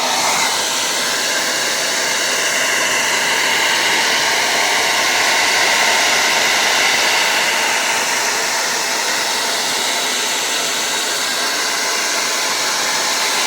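An old Remington handheld hair dryer running steadily, its fan blowing a constant rushing stream of air with a faint whine in it.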